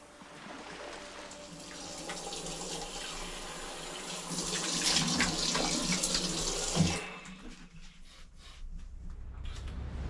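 Water running, growing louder and then stopping abruptly about seven seconds in, followed by a few faint clicks.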